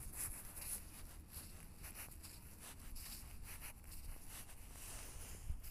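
Footsteps through dry, patchy grass: faint, irregular crunching and rustling.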